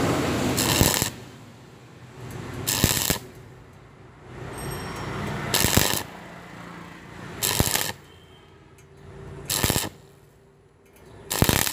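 Stick-welding arc crackling and sputtering as the electrode burns along a joint in thin steel. A short, much louder surge comes about every two seconds.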